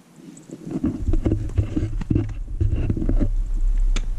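Low rumble and irregular knocks and rustles on a GoPro's built-in microphone, starting suddenly about half a second in: handling and wind noise as the camera is moved about close to the kitten.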